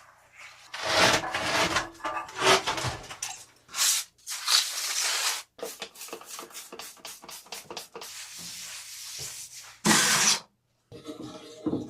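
A quick run of short, cut-together work noises: scraping, rubbing and sharp clicks of hand work on the fittings of a hot water tank being installed.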